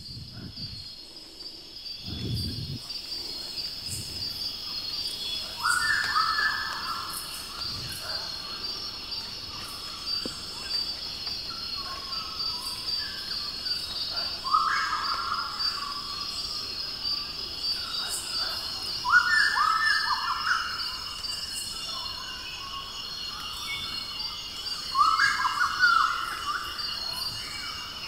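Recorded forest soundscape played back over a hall's loudspeakers: a steady, pulsing high insect chorus throughout, with a bird singing a short phrase four times, each about five seconds apart and louder than the rest.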